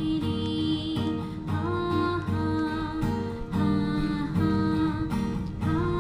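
Background music led by acoustic guitar, with chords changing about once a second.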